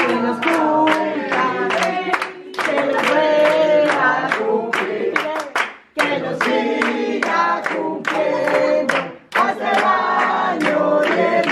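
A group of voices singing a birthday song in chorus, with hands clapping along, pausing briefly between lines.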